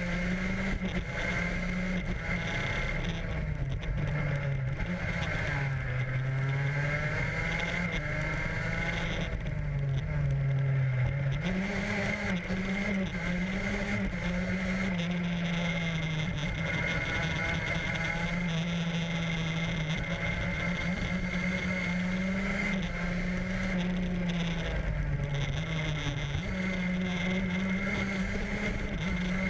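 Vehicle engine heard onboard during a racetrack lap, running at fairly steady revs. The revs drop twice, around four and nine seconds in, and pick up again about twelve seconds in, with a steady high whine throughout.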